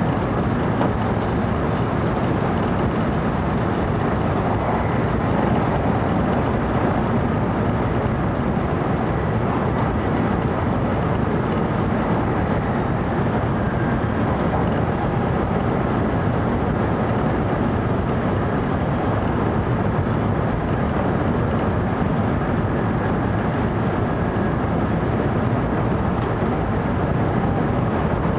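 Steady running noise of a 700 series Shinkansen train at speed, heard inside the passenger car: an even rumble and rush that holds level throughout.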